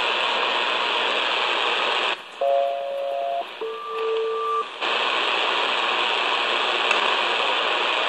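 Shortwave receiver hiss on an idle HF aeronautical voice channel in upper sideband. About two seconds in the static drops away and a SELCAL call sounds: two pulses of about a second each, each made of two tones played together, with a short gap between them, then the hiss returns. It is the selective-calling signal a ground station sends to alert one aircraft's crew.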